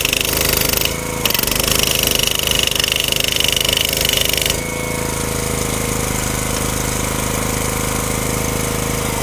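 Pull-start petrol jackhammer running and hammering rapidly, with a short break about a second in. A little past halfway the pounding turns quieter and smoother while the machine keeps running.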